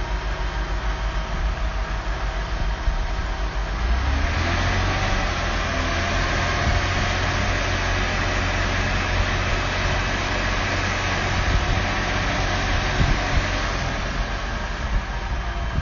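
Heavy diesel engine running steadily. It rises in level and gets rougher about four seconds in, stays up, then eases back down near the end.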